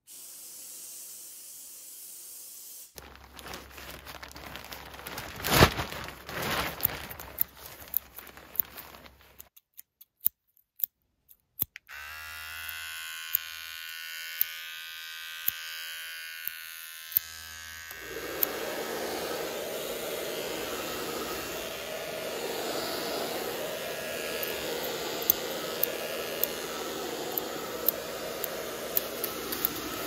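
Barber-shop sound effects one after another: a soft hiss, then scattered clicks and snips with one loud click, then from about twelve seconds in an electric clipper buzzing. In the last part a denser steady noise runs with sharp clicks over it.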